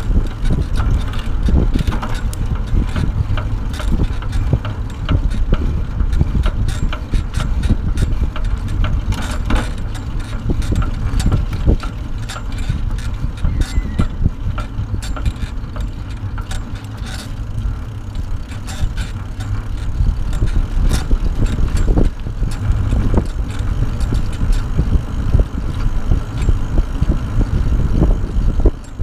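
Wind buffeting the microphone over the rumble of a bicycle-towed pet trailer rolling on asphalt, with frequent small rattles and knocks from the trailer and bike over bumps in the path.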